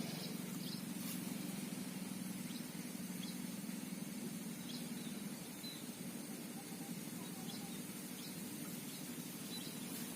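Quiet outdoor ambience: a steady low hum with scattered faint, short high-pitched chirps.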